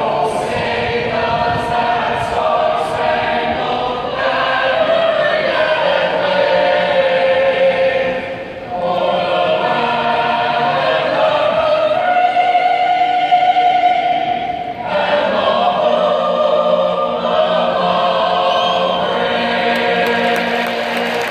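A choir singing in long held phrases, with short breaks about eight and a half and fifteen seconds in.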